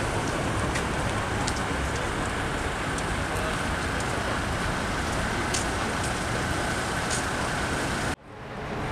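Steady outdoor street ambience: a broad rushing noise with a low rumble, a faint steady high whine and a few light ticks. It cuts off abruptly about eight seconds in, then fades back in.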